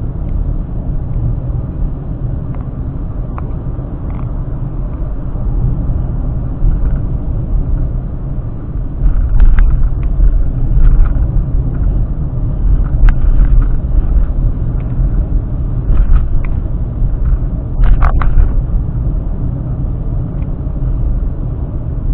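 Car road and engine noise picked up inside the cabin by a dashcam: a steady low rumble, with a few short sharp knocks and rattles in the middle.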